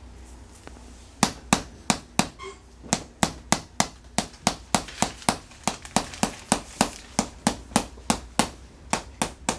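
Chiropractic tapping tool striking in quick, even taps, about three sharp taps a second, starting about a second in.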